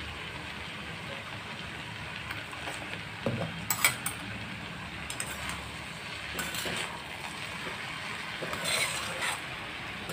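A spatula scraping and clinking against a metal kadhai as cabbage and chana dal are stirred, in short clattering bursts from a few seconds in, over a steady sizzle of the vegetables cooking.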